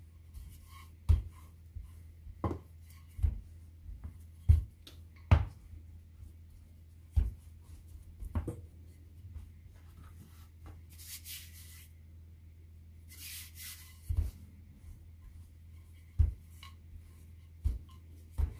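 Wooden rolling pin rolling out soft yogurt dough on a wooden board, with irregular knocks of the pin on the board about every second or so and two brief rustles of hands on the dough near the middle. A low steady hum runs underneath.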